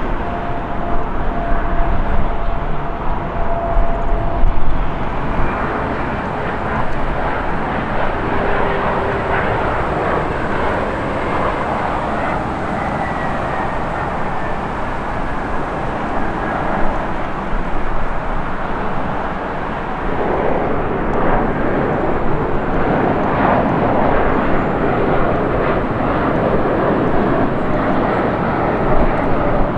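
Commercial jet airliner engines on departure and approach: a steady rush of engine noise with a thin whine that falls slowly in pitch, getting louder about two-thirds of the way through.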